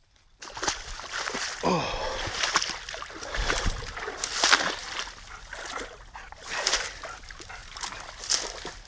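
Splashing and sloshing in a shallow muddy creek as a small dog is pulled through the water on its leash and a person wades across, with dry twigs and brush crackling and snapping underfoot.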